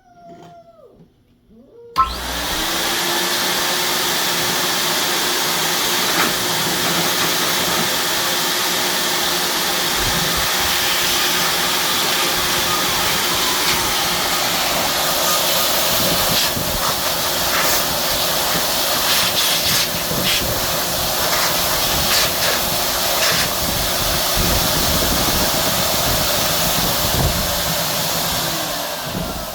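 Pet blow dryer switching on about two seconds in and blowing steadily, a loud rush of air over a constant motor hum, then winding down near the end.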